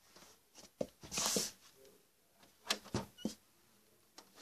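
Handling noise close to the microphone: a short rustle and several light knocks and clicks as someone shifts about on the floor.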